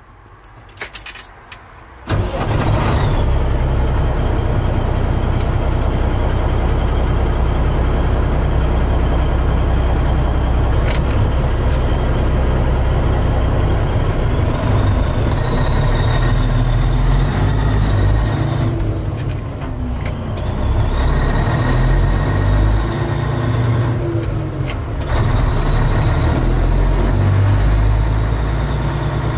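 Semi truck's diesel engine heard from inside the cab. After a few light clicks it comes in abruptly about two seconds in, then runs heavily and steadily as the truck drives. There is a faint high whine over the engine, and the engine note dips briefly twice.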